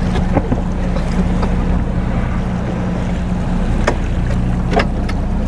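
Boat engine running with a steady low hum, over wind and water noise, with a few sharp knocks.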